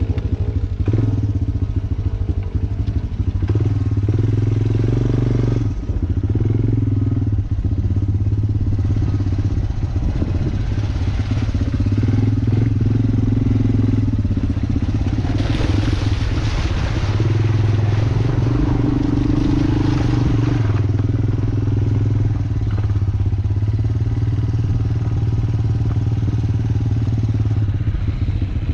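Off-road motorcycle engine running under the rider, the throttle opening and easing off every few seconds as it rides a rough, muddy trail. About halfway through, a stretch of rushing, rattly noise joins the engine.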